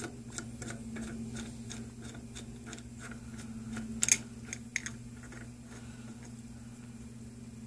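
Small metallic clicks and ticks, a few a second, as the bolt of a Ford Focus 2.0L SOHC cam sprocket is threaded in by hand and the sprocket shifts on the camshaft, with a sharper double click about four seconds in. A steady low hum lies underneath.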